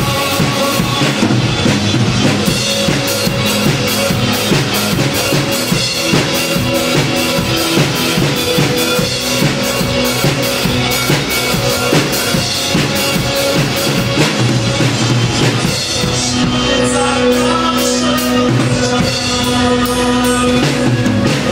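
Pearl acoustic drum kit with Meinl cymbals played along to a backing music track: steady bass drum, snare and hi-hat hits over pitched accompaniment. The hits thin out about two-thirds of the way in.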